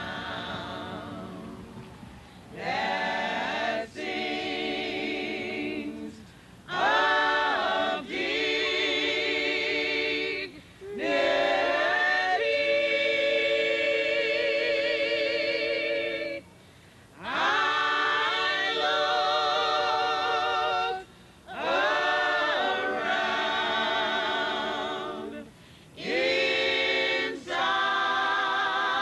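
A women's choir singing a cappella: long sung phrases with held, wavering notes, broken every few seconds by short pauses for breath.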